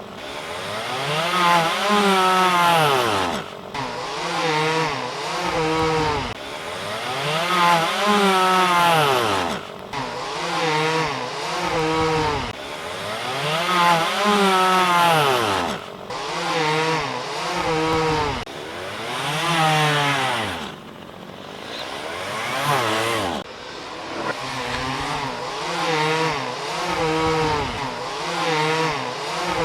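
Chainsaw engine revving up and down over and over, its pitch climbing and dropping with a new swell every second or two.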